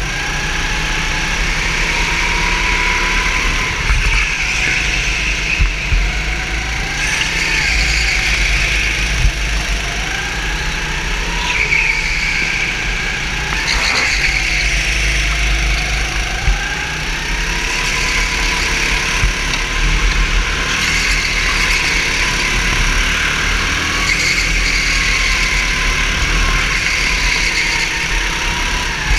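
Racing kart's engine heard from on board, its pitch repeatedly rising as it accelerates out of corners and falling as it backs off into them, over a steady low rumble. A few short sharp knocks come through now and then.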